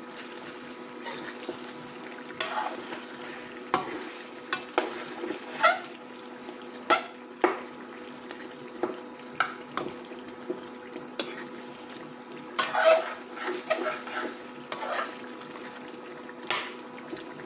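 Metal spoon stirring and scraping chicken and tomatoes around a steel karahi, irregular scrapes and knocks against the pan every second or so, over the steady sizzle of the frying.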